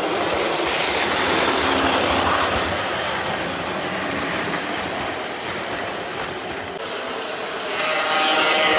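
Lionel 2356 Southern F3 O-gauge diesel and its streamlined passenger cars running past on three-rail track, wheels rumbling and clicking over the rails. Near the end the locomotive's buzzing horn sounds.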